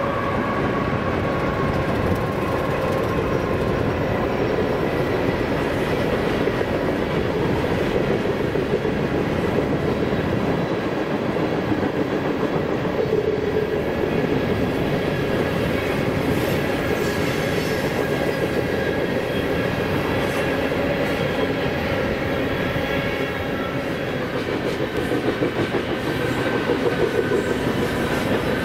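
Freight train of covered hopper cars rolling past: a steady rumble of steel wheels on rail, with faint wheel squeal on the curve.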